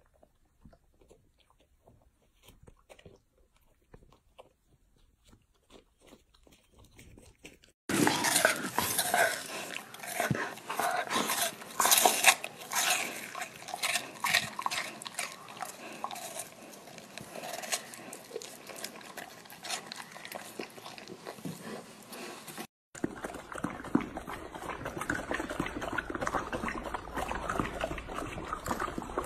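Golden retriever eating: faint soft chewing at first, then from about eight seconds in, loud crisp crunching and biting on a raw white vegetable. Near the end, quieter, rapid wet licking and smacking at food cups.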